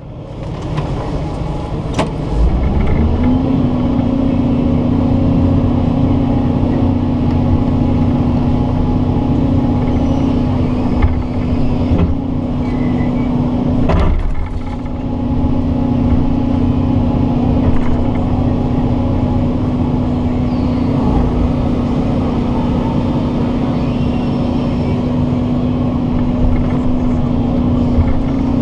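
Doosan excavator's diesel engine rising to working speed about two to three seconds in, then running steadily while the machine works. Two sharp knocks stand out, one about two seconds in and one about halfway through.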